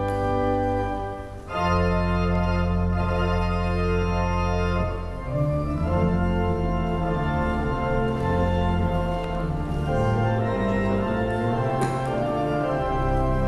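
Background music of slow, held organ chords that change every second or two, with a brief dip in loudness a little over a second in before the next chord.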